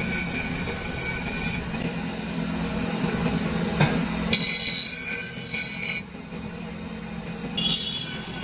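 Bench grinder running with a steady hum while a cast metal part is pressed against the abrasive wheel in spells, giving a harsh grinding noise near the start, in the middle and near the end. A single knock a little before the middle.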